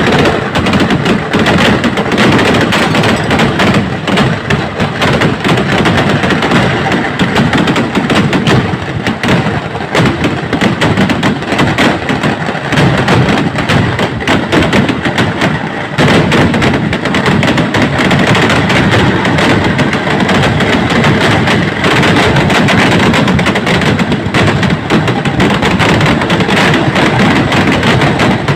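Firework barrage: a dense, unbroken string of rapid bangs and crackles that runs on without a pause, each blast piling onto the next.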